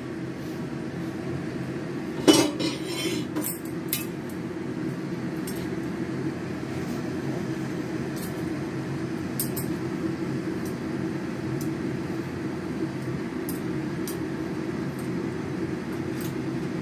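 Steel tongs clinking against the pan and the gas stove's grate as a chapati is turned and puffed over the open flame: one sharp clink about two seconds in, a few more soon after, then light scattered ticks. Under it runs a steady low rush.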